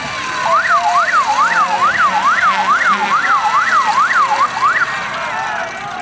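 Siren in a fast yelp, its pitch sweeping up and down about two and a half times a second for some four seconds, then stopping.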